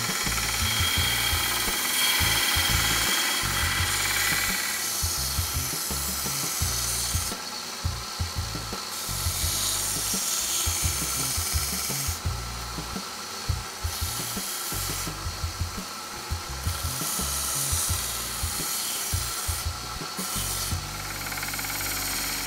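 Small bench belt sander grinding the handle slabs of a knife, the first rough profiling of the handle. The grinding hiss comes and goes several times as the handle is pressed onto the belt and lifted off.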